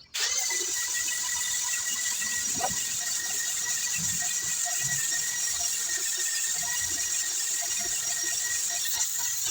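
A machine running with a steady high-pitched whine over a hiss, cutting in abruptly at the start.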